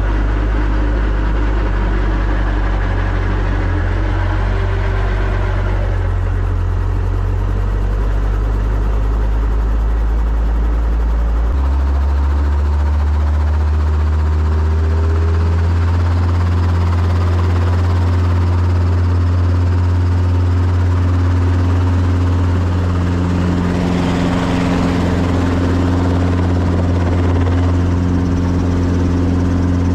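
Light helicopter's engine and main rotor heard from inside the cockpit, a loud steady drone. About eleven seconds in the low tone steps up in pitch and holds there as the rotor comes up to flying speed, ahead of the helicopter lifting into a low hover.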